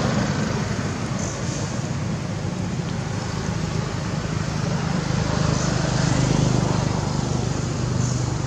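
A motor vehicle engine running with a steady low hum over road-traffic noise, swelling slightly in the middle.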